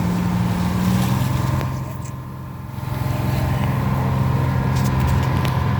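A fishing boat's engine running steadily; its note drops a little over a second in, dips briefly in loudness and then runs on.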